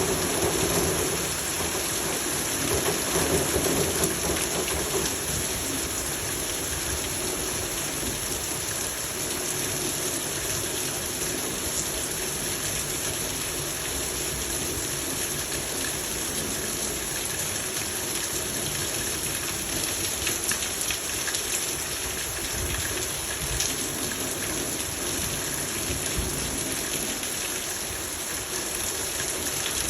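Steady rain falling, an even hiss of many drops, with a louder low rumble in the first few seconds.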